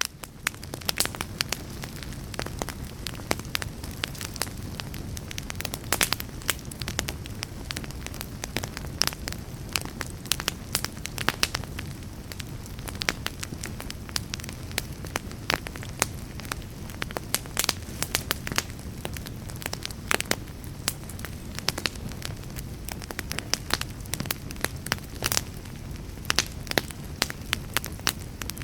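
Wood fire burning in a fireplace, crackling: many sharp, irregular pops and snaps over a steady low rumble of the flames.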